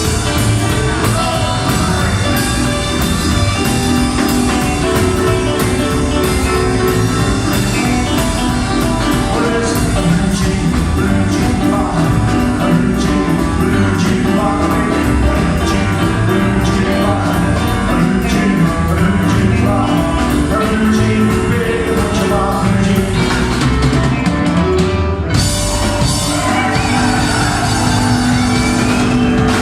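Live rockabilly band playing with a male lead vocal, electric guitar, upright-style bass line and a steadily hit drum kit. There is a short break about 25 seconds in before the band kicks back in.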